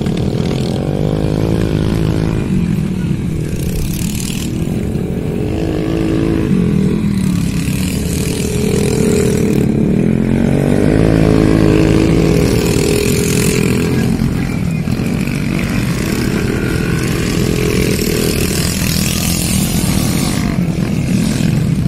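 Scooter and small motorcycle engines racing on a dirt track, revving up and easing off again and again, so the pitch keeps rising and falling. They are loudest about eleven seconds in.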